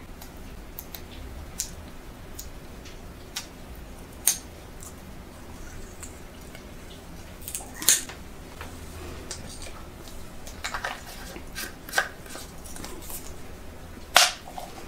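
Small plastic cap of a vitamin E oil bottle being worked open by hand: scattered small clicks and taps, with sharper clicks about 8 seconds in and near the end.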